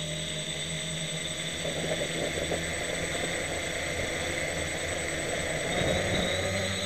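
Electric motors and propellers of a home-built AeroQuad quadcopter whirring steadily in flight, heard from on board, with a steady high whine.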